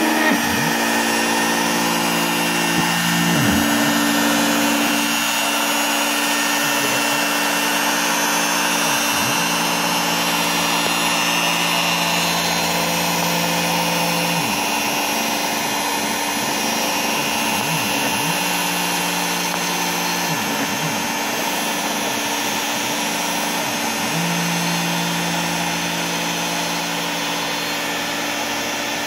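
Bosch Colt trim router in an OX CNC machine spinning steadily as its 1/32-inch single-flute bit cuts foam board, with a vacuum running alongside. The machine's motors whine, dipping and rising in pitch several times as the gantry changes direction.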